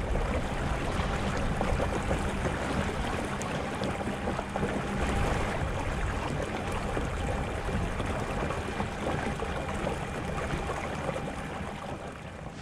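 Water rushing and splashing steadily past the hull of a fishing kayak running at speed under a Newport Vessels electric motor and pedal drive, easing slightly near the end.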